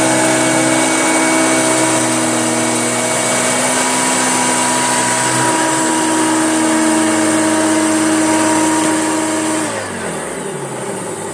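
Hoover Junior upright vacuum cleaner running steadily with a whine over the rush of air, then switched off about ten seconds in, its motor winding down in pitch.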